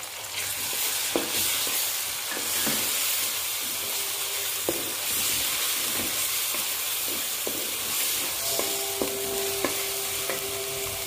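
Onions and ginger-garlic paste sizzling in hot ghee in a metal pan, stirred with a wooden spoon that knocks and scrapes against the pan now and then.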